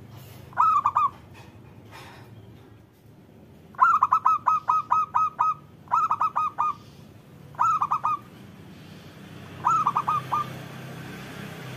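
Zebra dove (local Indonesian perkutut) cooing in five bursts of quick staccato notes, the longest a run of about nine notes some four seconds in, over a faint low hum.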